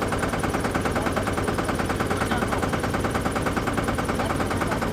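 Boat engine running steadily with a rapid, even chugging of about a dozen beats a second.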